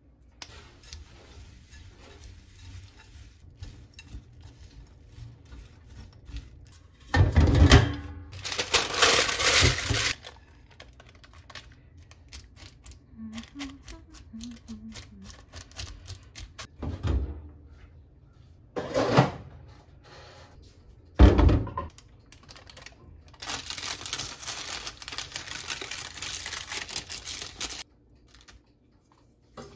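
Kitchen handling noises: a utensil stirring and scraping dry rolled-oat granola in a ceramic bowl and a paper-lined air-fryer basket, with a few short knocks. Near the end comes a longer stretch of scraping and rustling parchment paper.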